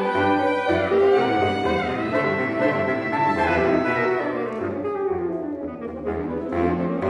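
Saxophone quartet of soprano, alto, tenor and baritone saxophones playing a tango together, the baritone moving through low bass notes under the upper voices.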